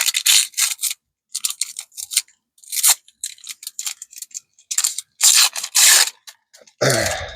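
Plastic wrap and cardboard packaging of a trading-card box crinkling and rustling in hand as it is opened, in a run of short, uneven crackles. Near the end comes a brief vocal sound.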